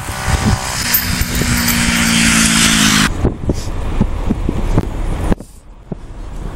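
Engine of a motor vehicle running steadily under loud wind rush on the microphone. It cuts off abruptly about three seconds in, leaving quieter outdoor noise with a few knocks.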